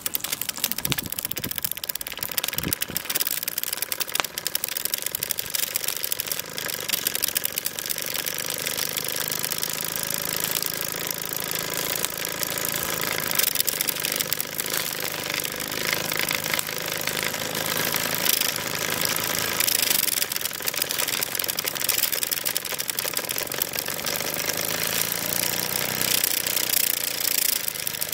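Mamod MM2 model steam engine starting suddenly and then running steadily, its single oscillating cylinder making a fast clattering beat as the flywheel spins. The owner believes the boiler was overfilled and priming, putting water into the cylinder, which kept it from running well.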